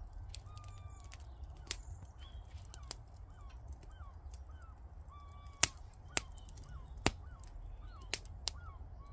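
Wood fire burning down to embers in a perforated metal drum fire pit, crackling with frequent sharp pops over a steady low rumble. Small birds chirp repeatedly in the background.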